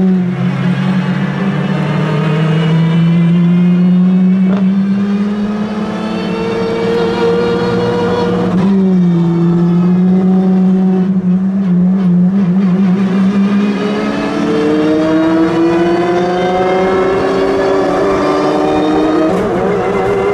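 Supercar engine running at fairly steady revs, its pitch drifting slowly up and down, with a sudden drop and recovery about nine seconds in and a slow climb later on.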